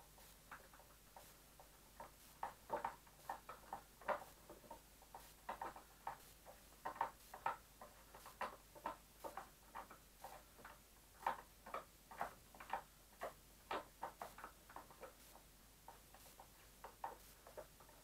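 Light, irregular clicks and taps, a few a second, from fingers turning a screw and handling the plastic front housing of an Elektrosila-2 vacuum cleaner. The clicks thin out near the end.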